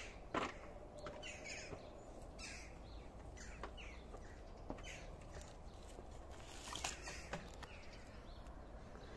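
Faint, scattered short bird calls, a few every couple of seconds, with no hedge-trimmer engine running.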